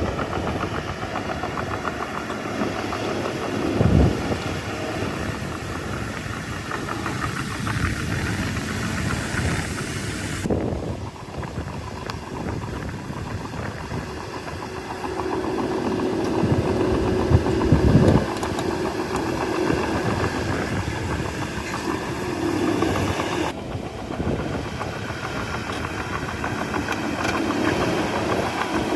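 Shantui bulldozer's diesel engine running under work, with loud thumps about four seconds in and again near eighteen seconds.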